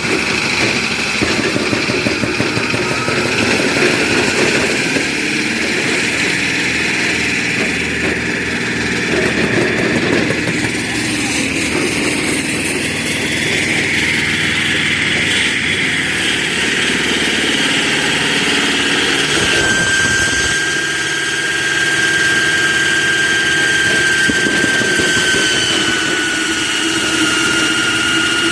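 Concrete cutting machine running steadily, its engine noise joined by a high whine that sets in about two-thirds through and dips slightly in pitch near the end.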